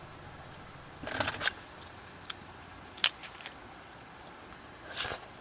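Short clicks and scrapes of food and cookware being handled: a cluster about a second in, a sharp click about three seconds in, and a brief scrape near the end.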